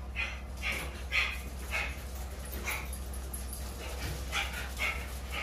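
Beagles yipping and barking in a run of short, high calls, about two a second with a brief pause midway, over the low steady hum of an idling pickup truck.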